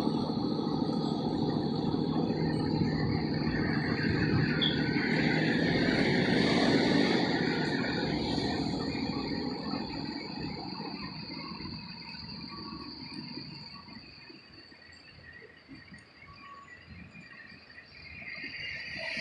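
Traffic on a wet street, a school bus among the passing vehicles: engine rumble and tyre hiss, loudest in the first half and fading away over the last several seconds before rising again at the very end. A steady high-pitched tone runs underneath.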